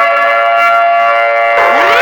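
Emergency alert (EAS) alarm tone: a loud siren-like chord of several pitches holds steady after winding up. Near the end, a rising whoop begins, the first of a repeating series of sweeps.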